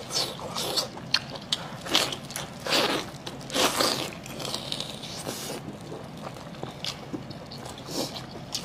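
Close-miked wet chewing, slurping and lip-smacking as a spicy, chili-sauced piece of sheep offal is bitten and torn, in irregular bursts that are busiest in the first half and pick up again near the end.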